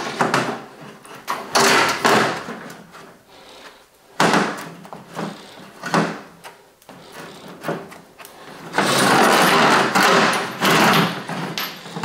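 Milwaukee M18 drum drain machine running in irregular bursts of one to two seconds, with quieter gaps between, as its 7/8-inch steel cable is pulled back out of a clogged sewer drain into the drum.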